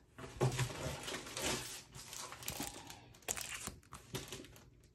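Clear plastic sleeve holding a scrapbook paper kit crinkling and rustling as it is handled and laid on the table, with a few sharp ticks about three seconds in.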